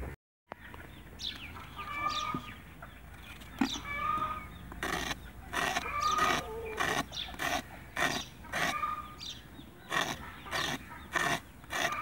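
Large knife scraping the skin off a bottle gourd in short repeated strokes, about one to two a second from around five seconds in, with short animal calls in the background.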